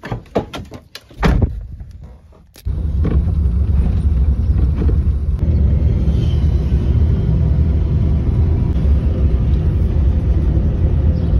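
A few clicks and clunks of a key in a car door lock and the door latch, then from about three seconds in a steady low rumble of the car driving, heard from inside the cabin.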